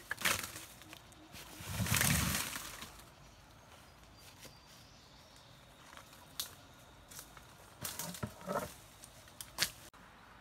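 Freshly cut bamboo shoots tossed onto a pile on dry bamboo leaf litter: a loud rustle with a dull thump about two seconds in, then scattered knocks and crackles as shoots land and knock together.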